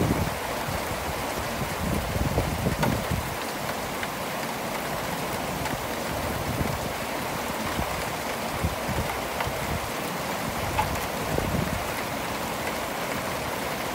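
Steady monsoon rain falling, with irregular bursts of low rumble, strongest in the first few seconds and again near the end.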